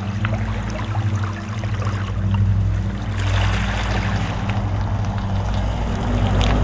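City bus driving past, its engine and tyre noise building in the second half as it comes close, over a steady low hum.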